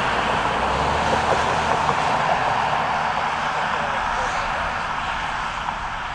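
Boeing 767 jet engines at takeoff power, a steady rush that slowly fades as the airliner climbs away.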